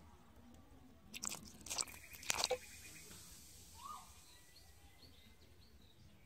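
A fish splashing in a small muddy water-filled hole: a few sharp wet splashes in quick succession between about one and two and a half seconds in.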